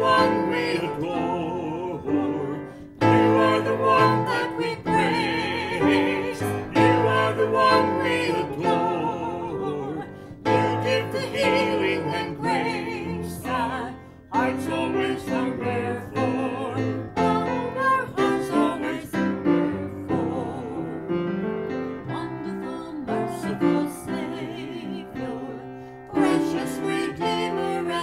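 A man and a woman singing together with vibrato, accompanied on an upright piano, with short breaths between phrases.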